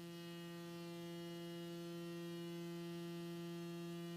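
Doepfer Dark Energy Mark I analog synthesizer sounding a steady, buzzy ramp (sawtooth) wave through a portable speaker. Its upper overtones shift slowly as the pulse-width knob is turned.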